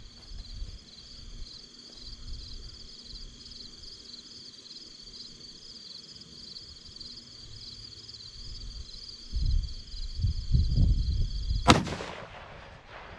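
A single shot from a Ruger American Predator bolt-action rifle in 6.5 Grendel, firing a 120-grain Nosler Ballistic Tip load, near the end: one sharp report with a short ringing tail.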